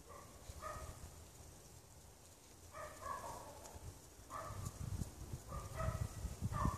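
Faint animal calls, five short groups of pitched notes coming every one to two seconds. A low rumbling noise grows in after about four seconds.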